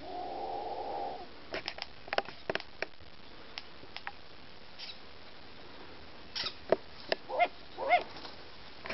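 Long-eared owls in alarm at an intruder: a drawn-out call about a second long at the start, sharp bill snaps scattered through, and a few short loud calls near the end.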